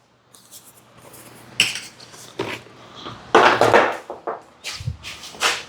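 A series of light metallic clinks and knocks from hard objects being handled, with a longer, louder rattle about three and a half seconds in.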